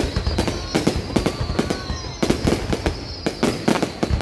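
Fireworks going off in a rapid, irregular series of bangs and crackles, several a second, with a steady high whistle-like tone running underneath.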